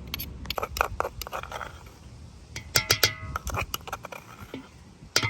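Metal utensil clinking and scraping in a metal bowl as garlic paste is worked into the chicken, with rapid runs of clinks that ring on about three seconds in and again near the end.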